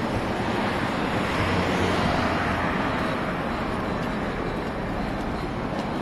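Steady rush of passing road traffic that swells about two seconds in, with wind rumbling on the microphone.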